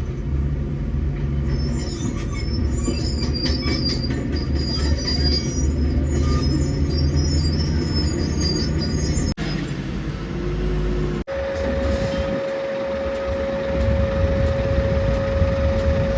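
Tata Hitachi excavator's diesel engine running under load, with scattered high-pitched metallic squeals over the first half. After two brief cuts, a steady high tone sits over the engine.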